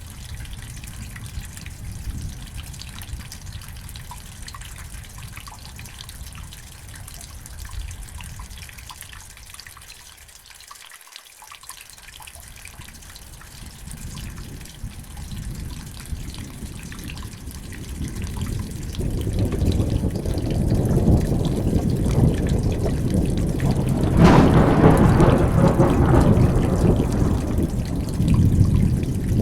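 Steady rain with dripping water, then a long rolling rumble of thunder that builds from about two-thirds of the way in and is loudest near the end.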